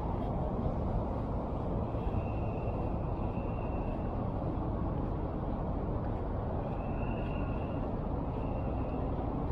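Steady city street traffic noise from passing vehicles, with a faint high whine that comes and goes a couple of times.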